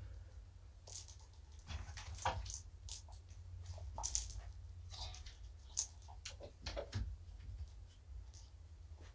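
Kittens playing among cat toys on a rug: scattered soft taps, rustles and clicks at irregular times, over a steady low hum.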